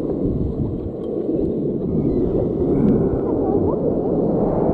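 Whitewater river rapids rushing and splashing against an inflatable raft: a loud, steady rush of water, heavy in the low end.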